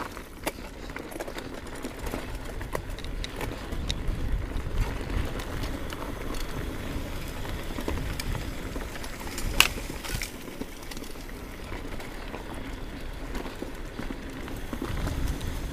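Orbea Alma hardtail mountain bike riding fast over a dirt forest trail: a steady low rumble of the tyres on the ground, with frequent rattling clicks from the bike and one sharper clack about nine and a half seconds in.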